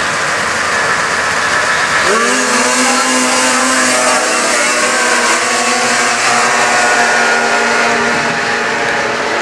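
Two racing snowmobiles idle at the start line, then launch about two seconds in. Their engines rev up quickly and hold steady at high revs as the sleds climb the hill.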